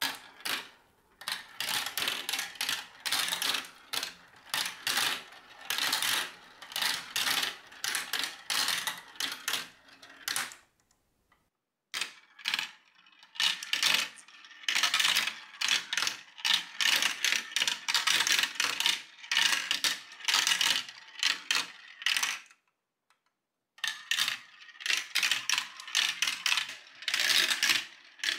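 Glass marbles clicking and rattling down the plastic tubes, chutes and curved tracks of a Galt Marble Run, in runs of many quick clicks. The clicking breaks off briefly about ten seconds in and again a little after twenty-two seconds, then starts up again as more marbles are dropped in.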